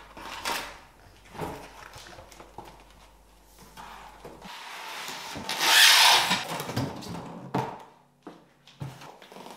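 Cardboard shipping box being handled: flaps lifted and the boxed iMac slid out against the cardboard. There are scattered knocks and rustles, and one longer, louder scraping rub about six seconds in.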